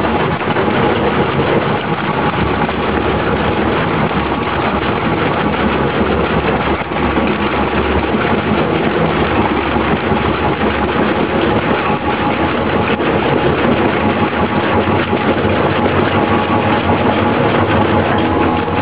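Single-shaft shredder running steadily, its alloy-steel rotor blades grinding a roll of plastic film in a loud, continuous churning noise.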